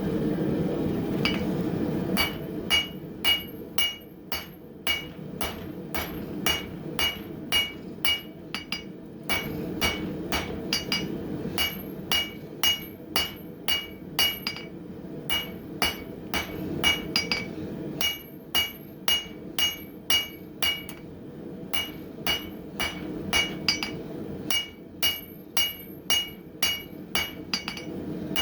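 Hand hammer striking hot coil-spring steel on an anvil, about two blows a second with a bright ring on each, in runs broken by short pauses, flattening the piece. A gas forge runs steadily underneath, most noticeable before the hammering starts about two seconds in.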